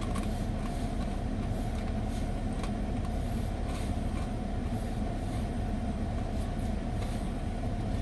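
Steady low hum inside a car cabin, with a few faint crunches as dried apple crisps are chewed.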